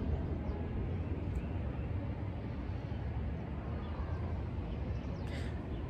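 Steady low rumble of distant city traffic, with no distinct events.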